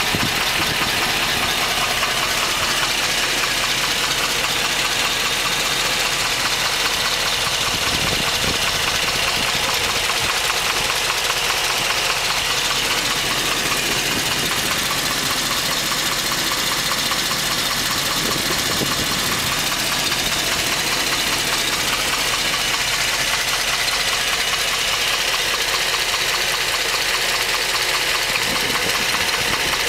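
The 2010 Hummer H3 Alpha's LH9 5.3-litre all-aluminium V8 runs steadily at full warmth with a rapid, even knock. GM diagnoses the knock as piston slap; the owner thinks it sounds like a diesel or a rod knock.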